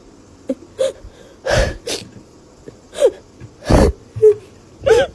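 Cartoon character crying: short sobbing cries with a wavering, bending pitch, broken by sharp, noisy gasping breaths. The loudest gasp comes about two-thirds of the way through.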